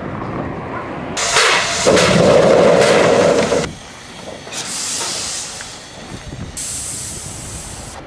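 Narrow-gauge steam locomotive venting steam: a loud hiss from about a second in until nearly four seconds, then two shorter, fainter bursts of hissing.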